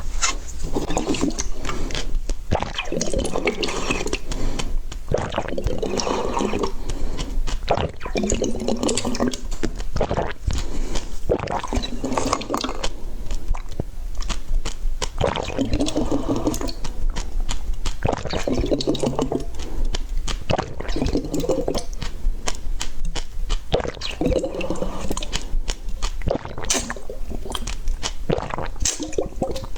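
Close-miked chewing of food: wet mouth sounds, smacking and squelching, with many sharp clicks and recurring juicy bursts every few seconds.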